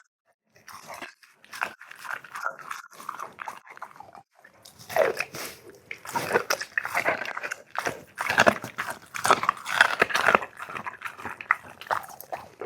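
A pet eating meat, chewing and crunching in quick irregular bites. The bites are sparse at first and come thick and fast from about four seconds in.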